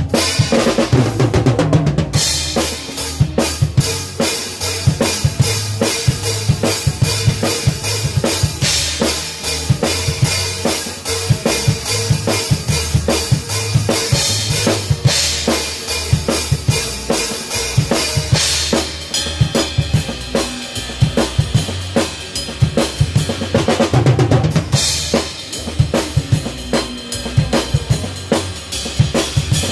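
Drum kit played to a song: a steady run of kick and snare strokes with bright cymbal crashes every few seconds, over a band's bass line and other instruments.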